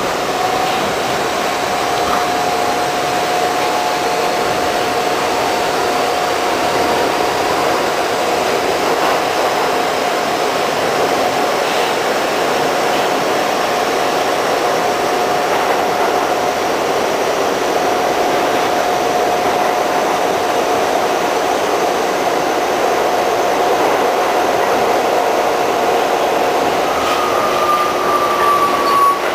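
New York City Subway R68 car with Westinghouse propulsion running at speed, heard from inside the car: a steady loud rumble and rush of wheels on rail with a steady whine, and a faint high whine that slowly rises. A higher tone comes in near the end and falls slightly.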